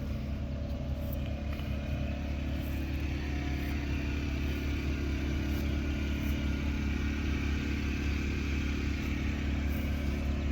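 A tractor engine running steadily at an even idle.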